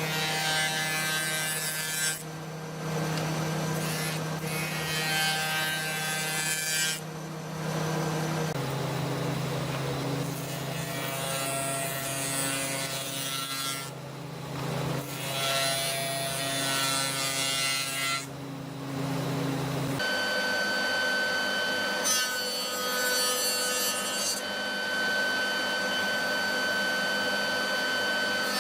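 Power tool working wood: a steady motor hum under repeated passes of rough cutting or abrading noise, with short pauses between passes.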